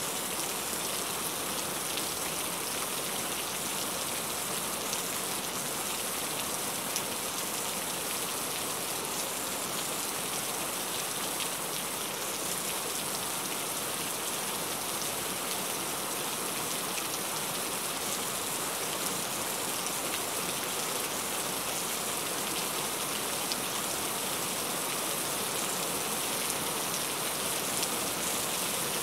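Heavy rain falling steadily: a dense, even hiss with scattered ticks of single drops striking a surface.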